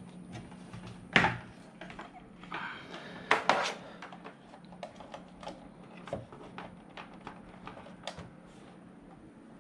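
Irregular small clicks and knocks of things being handled, with a louder knock about a second in and a short cluster around three and a half seconds, over a faint steady low hum.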